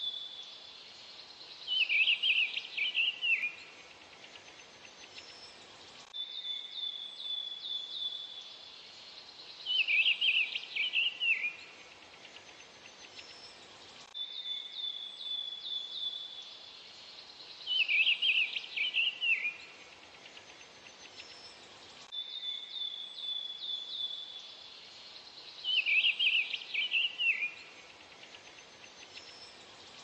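Songbird singing: a thin, high trill followed by a loud, bright warbled phrase that drops in pitch over about a second and a half. The same short recording repeats every eight seconds, four times over.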